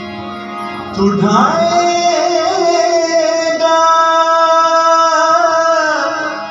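A man singing a masihi geet (Christian devotional hymn): his voice comes in about a second in, slides up and holds one long wavering note over a steady harmonium drone.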